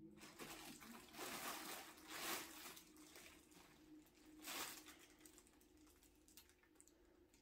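Silver-and-red crinkle-fabric cat tunnel rustling and crackling as cats push and scramble against it. The crackling is faint and comes in spells: the loudest about two seconds in, another around four and a half seconds in, then it dies down.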